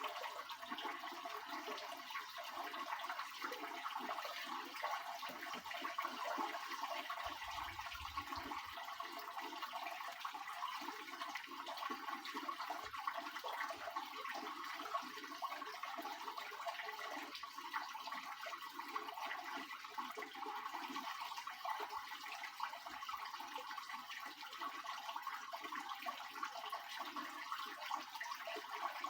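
Water running and splashing steadily in a Soviet washing machine.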